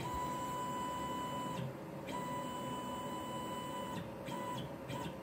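CNC machine's X-axis stepper motor whining at a steady pitch as the axis is jogged back: two moves of about a second and a half to two seconds each with a short pause between, then two brief blips near the end.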